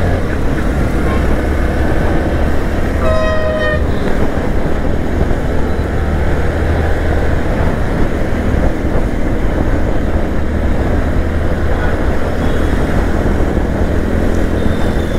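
Steady riding noise of a Bajaj Platina 100 motorcycle cruising in city traffic: loud wind rush and engine drone. A vehicle horn sounds once, briefly, about three seconds in.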